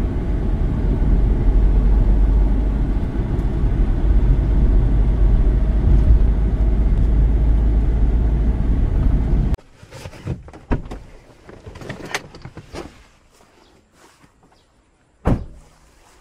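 Loud, steady low rumble of wind buffeting a small action camera's microphone, cutting off abruptly about ten seconds in. After that come a few scattered knocks and clicks of handling.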